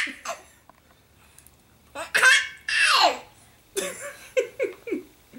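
Baby laughing: two long, high squealing laughs about two seconds in, each falling in pitch, then a run of four short laughs near the end.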